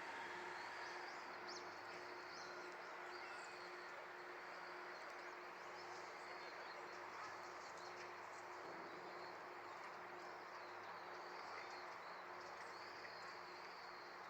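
Faint outdoor ambience: small birds chirping on and off over a steady low hum.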